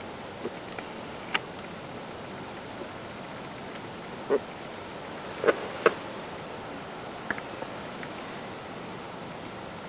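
Outdoor field ambience: a steady hiss with a faint, thin, high insect drone, broken by a handful of short, sharp clicks and taps, the loudest two close together about halfway through.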